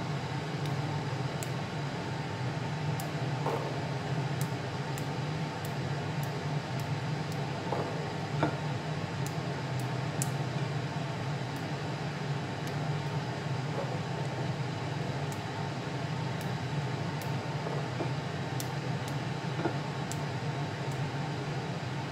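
A steady low machine hum with faint, irregular small clicks of Thai pea eggplants being picked off their stems by hand.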